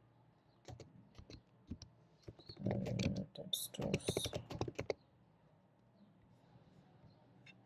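Typing on a computer keyboard: a run of key clicks, densest for a couple of seconds in the middle, that stops about five seconds in, with one more click near the end.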